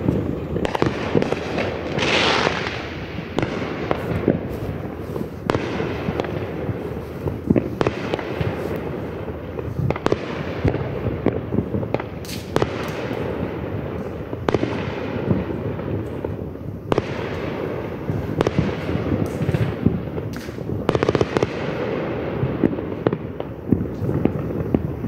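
Fireworks going off: a steady run of bangs and crackling pops, with a brief hiss about two seconds in.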